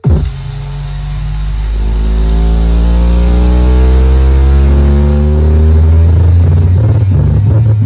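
Logitech Z623 subwoofer playing very loud, deep bass, with a slowly rising pitch sweep over several seconds followed by a pulsing beat near the end.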